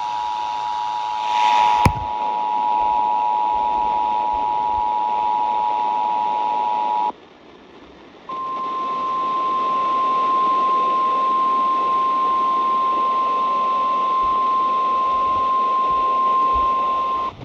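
Emergency Alert System attention signal over radio hiss: a steady two-tone beep that cuts off about seven seconds in. After a second of static, a single slightly higher steady tone, the weather radio warning alarm, sounds for about nine seconds.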